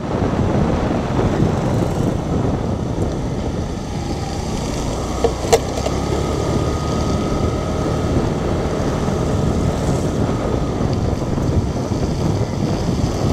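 Steady wind and road noise of a motorcycle riding along a wet road, with a short sharp click about five and a half seconds in.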